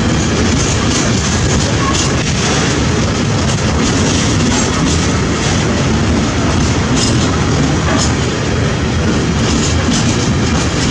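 A freight train of tank wagons rolling past, a steady loud rumble of wheels on rails with occasional clacks over the rail joints.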